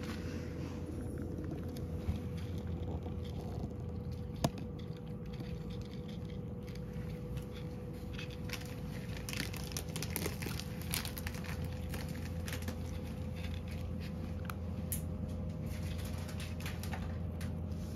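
A cat crunching dry kibble mixed with dried sardines from a ceramic dish: a steady run of small crisp crunches and clicks, busiest around the middle, over a steady low background hum.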